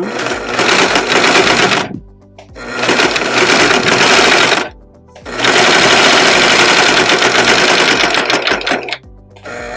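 Simplicity SB3734T serger stitching down the side seam of a fabric bag, running in stretches of two to four seconds with brief stops between them as the fabric is fed by hand; the longest run comes in the second half, and it starts again just before the end.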